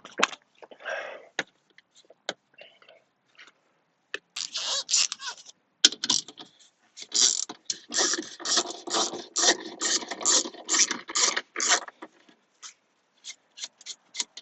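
Scraping and rapid clicking of hand work on car parts: a few separate clicks, then a dense run of rasping clicks from about four seconds in that stops about twelve seconds in, followed by scattered clicks.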